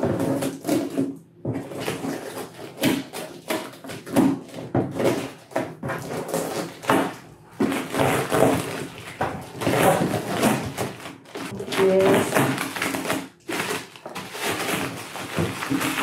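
Packing tape being peeled and torn off a cardboard shipping box, with the box handled and its plastic wrapping crinkling, in a busy run of ripping and rustling noises.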